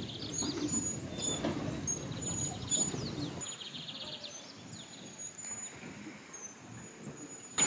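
Birds calling: repeated short high chirps and quick falling whistles, with some fast rasping trills, over a low outdoor background noise that drops away about three and a half seconds in.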